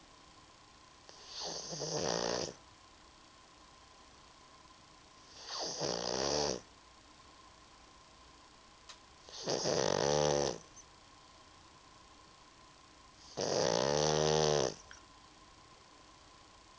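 A fat pug snoring in her sleep: four long snores about four seconds apart, each lasting a little over a second.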